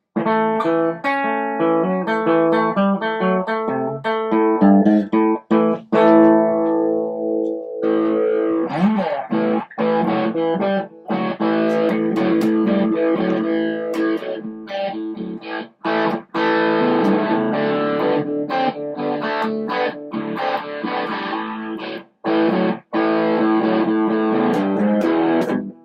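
2018 Duesenberg Paloma electric guitar played through its pickups with a bit of gain from an Ibanez Nu-tube pedal. Picked single notes and arpeggios at first, then from about eight seconds in, fuller strummed chords broken by short stops.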